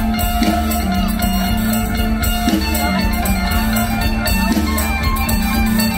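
Live Isan stage-band music played loud over a concert PA, with a steady bass and drum beat and no clear singing.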